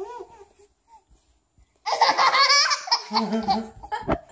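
A baby's loud burst of belly laughter about two seconds in, with a lower voice laughing after it, and a sharp thump near the end.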